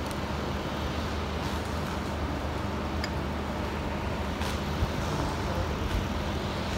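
Steady hiss and low hum from a steam locomotive standing in steam, with a few faint clicks.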